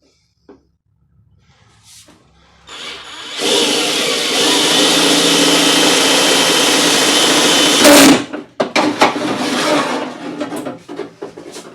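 Power drill running steadily for about four and a half seconds while boring a hole into a door, then stopping abruptly, followed by a few short knocks and clicks.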